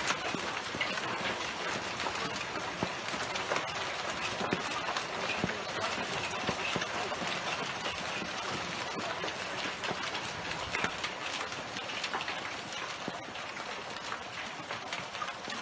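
Hailstones pelting down without a break onto a swimming pool, paving and garden beds: a dense clatter of countless small hits over a hiss of falling water.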